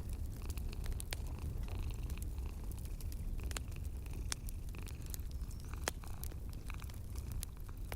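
Wood fire crackling in a fireplace, with scattered sharp pops over a steady low rumble.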